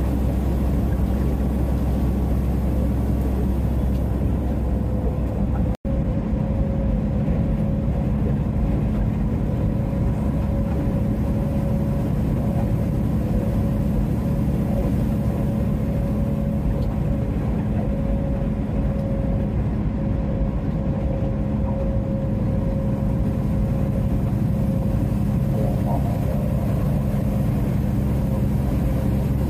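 Steady drone of a Peterbilt semi-truck's diesel engine and tyre noise heard inside the cab at highway cruising speed. The sound cuts out for an instant about six seconds in.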